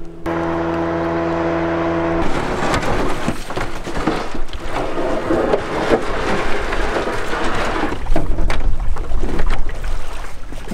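An engine running steadily while travelling: a clear, even hum for about two seconds, then a loud rushing noise with scattered knocks, growing louder near the end.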